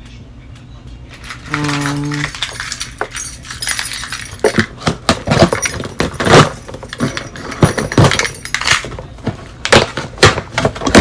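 A package being handled and opened by hand: a dense, irregular run of rustling, crinkling and sharp crackles.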